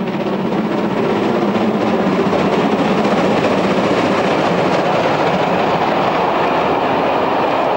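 DB class 050 (BR 50) 2-10-0 steam locomotive and its train running past at speed: a loud, steady rushing train noise that builds over the first second and then holds.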